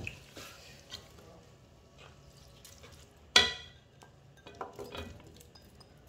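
A spatula stirring vegetables in a cooking pot, with faint scattered scrapes. About three and a half seconds in comes one sharp, ringing clink, the loudest sound, then a few more soft scrapes.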